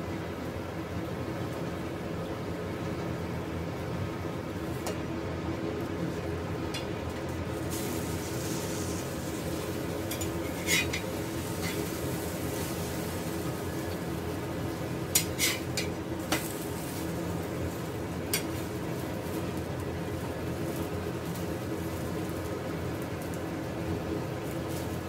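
Steady kitchen background hum with a few sharp clinks of utensils: one about eleven seconds in, a quick cluster around fifteen to sixteen seconds, and one more near eighteen seconds.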